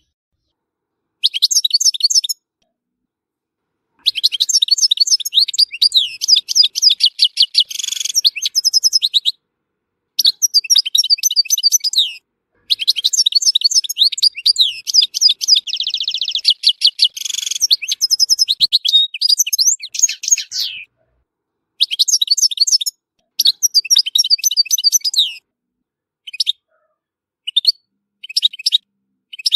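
European goldfinch, an Algerian bird, singing: phrases of rapid twittering and trills lasting from about one to eight seconds, separated by brief silences. A buzzy, rasping stretch comes about halfway through, and the phrases grow short and clipped near the end.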